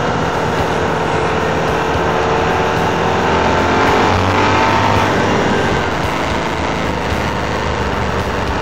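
Moto Guzzi Griso 1100's air-cooled 90-degree V-twin running at road speed, heard from on the bike under steady wind rush over the microphone. The engine note swells about four seconds in and then falls away.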